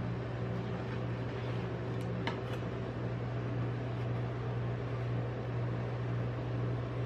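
Refrigeration unit of a rolled-ice-cream cold plate humming steadily. A few faint clicks of a metal tool on the steel plate come about two seconds in.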